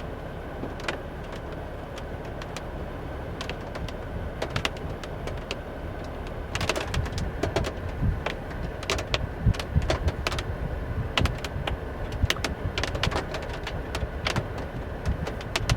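Gusty wind ahead of a derecho squall line, a steady low rumble on the microphone, with scattered sharp taps of the first wind-driven raindrops striking. The taps start about six seconds in and grow more frequent.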